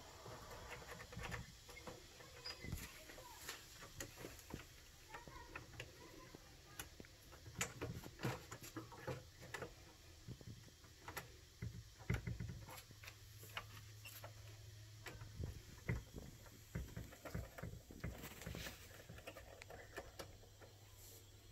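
Faint, irregular clicks and light taps of small plastic RC truck parts, screws and a hand tool being handled while the front axle and hub are worked on, with a sharper knock about twelve seconds in.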